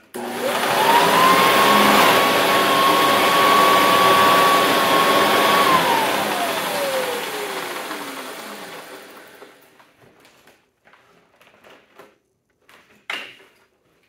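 Hoover Guardsman C1631 commercial upright vacuum's motor and fan switched on: the whine rises to a steady high pitch within about a second and runs for about five seconds, then cuts out and falls away as the motor coasts down over a few seconds. A few light handling knocks and a click follow.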